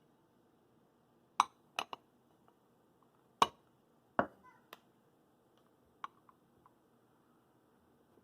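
Kitchenware clinking and tapping: about seven sharp, separate knocks spread over several seconds, two of them much louder than the rest, with quiet room tone between.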